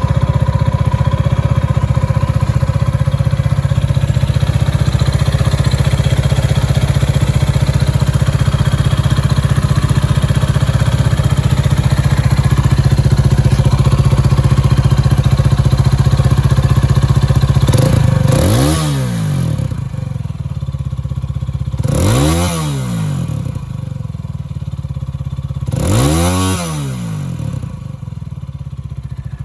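Gilera AC4 250 cc motorcycle engine running steadily, then revved three times about four seconds apart, each rev rising and falling back in pitch before it drops to a quieter idle.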